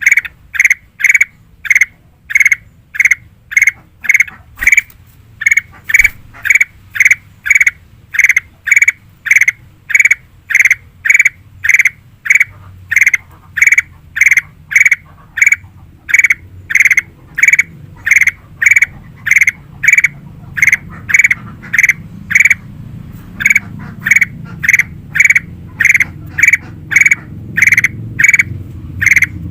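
Kutilang emas bulbul calling loudly, a short clear note repeated about twice a second with a few brief pauses. A low rumble builds underneath in the second half.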